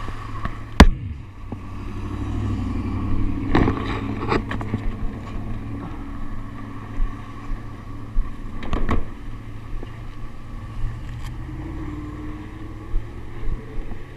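A vehicle engine idling with a low, steady hum, broken by a few sharp knocks, the loudest about a second in.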